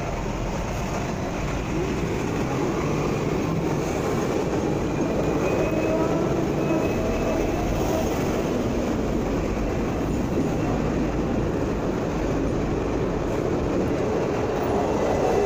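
Hong Kong double-decker tram running along its street track, heard from on board: a steady rumble with faint, thin squealing tones from the wheels on the rails through the middle.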